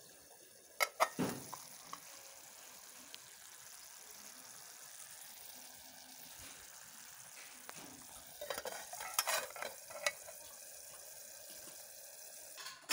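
Meat sizzling on a wire grill over charcoal, a faint steady hiss. A few sharp knocks and rubs from the phone being handled come about a second in and again about eight to ten seconds in.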